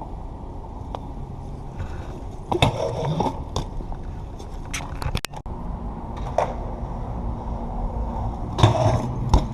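BMX bike being ridden: a steady rumble of tyres rolling and wind on the microphone, with sharp clacks and scrapes of the bike's metal parts hitting and landing, clustered about two and a half seconds in and again near the end.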